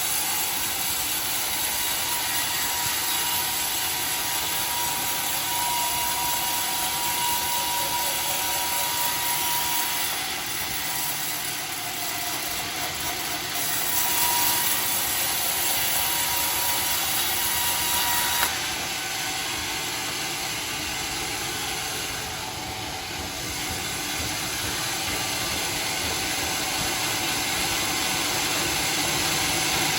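Homemade sawmill running steadily with its blade in dry teak. A thin, high whine comes and goes twice, and the sound eases off a little about 18 seconds in.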